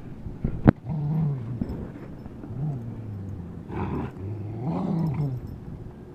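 Dog play-growling during keep-away play over a rope toy: several low growls, each about a second long, rising and falling in pitch. A sharp knock, the loudest sound, comes just under a second in.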